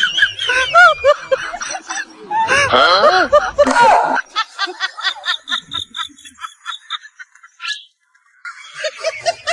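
A person snickering and laughing. In the middle the laugh breaks into quick, evenly spaced pulses, about five a second. It fades out briefly near the end, then starts again.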